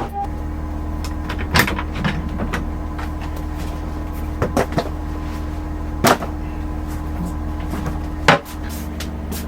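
A steady low hum with several sharp clicks and knocks, like cupboard doors and latches being worked; the loudest knock comes near the end.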